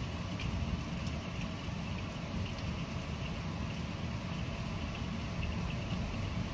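Steady noise of rain and wind in a thunderstorm, heaviest in the low range, with scattered light ticks of falling drops and no thunderclap.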